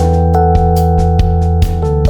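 Background music: sustained keyboard and synthesizer chords over a steady bass, with a regular beat.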